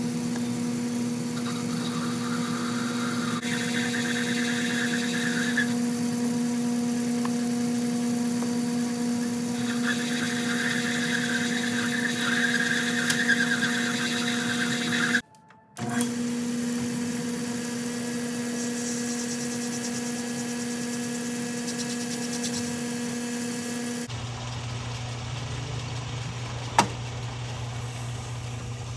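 Metal lathe running with a steady motor hum while cutting a brass blank, drilling and boring it out, with rasping cutting noise that comes and goes. The sound drops out briefly about halfway, the hum turns lower about five seconds before the end, and a single sharp click follows.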